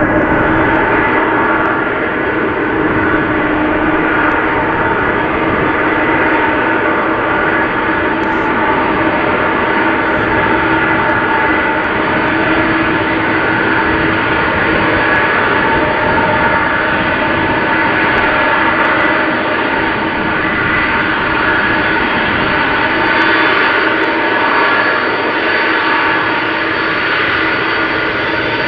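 Boeing 747's four jet engines running at taxi power: a steady whine with several held tones over a constant rushing noise.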